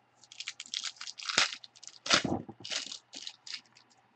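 Wrapper of a trading-card pack crinkling and tearing as it is opened by hand, a rapid, irregular run of rustles and crackles.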